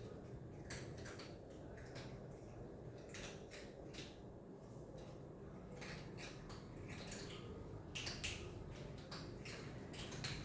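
An animal chewing food noisily: irregular crunches and wet clicks at uneven intervals, coming in quick clusters about three seconds in and again about eight seconds in.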